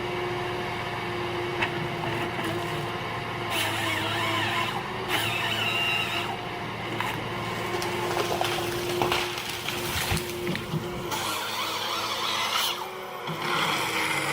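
Ponsse Ergo forestry harvester running with a steady engine drone, with several short, noisier surges over it.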